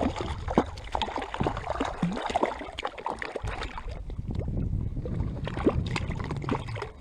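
Lake water sloshing and splashing around a float tube in irregular small splashes, over a low wind rumble on the microphone.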